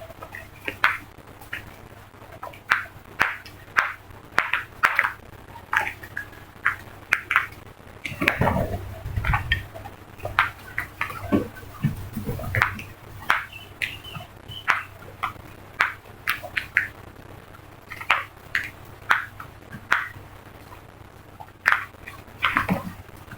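A flock of crows cawing: many short calls, one or two a second, overlapping at times. A low rumble comes in under the calls near the middle.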